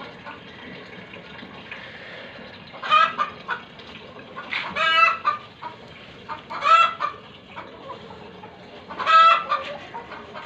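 Chickens calling: four loud, drawn-out calls spaced about two seconds apart, over a low steady background noise.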